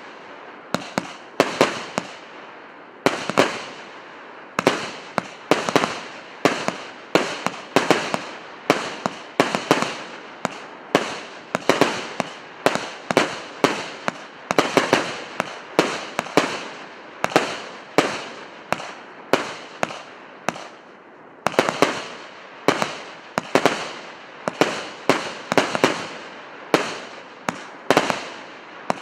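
A 100-shot, 1.2-inch firework cake firing shot after shot, a sharp bang followed by a fading tail about one and a half times a second, with brief pauses about 3 and 21 seconds in.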